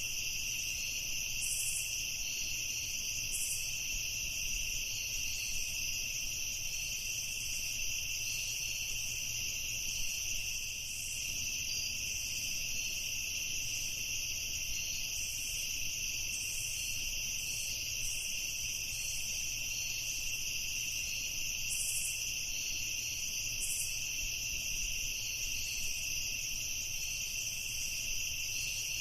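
Night ambience: a steady chorus of night insects, several layers of continuous high trilling at different pitches, over a faint low rumble.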